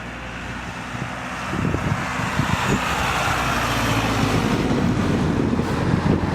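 Wind buffeting the microphone in gusts that strengthen about a second and a half in, over a steady low rumble.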